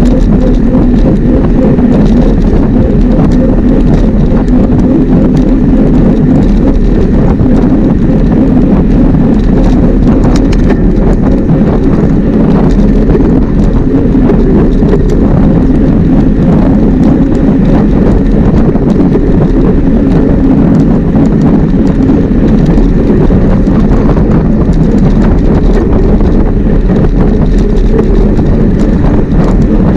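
Wind rushing over a bike-mounted action camera as a mountain bike is ridden, with the rumble of the ride beneath it: a loud, steady, low roar with many small rattles throughout.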